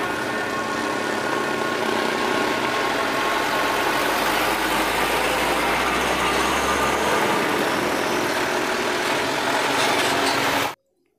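Tanker trucks driving past on a road, their engines running steadily with road noise. A deeper engine rumble swells in the middle as one passes close. The sound cuts off abruptly near the end.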